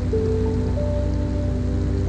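Background music of slow, held notes.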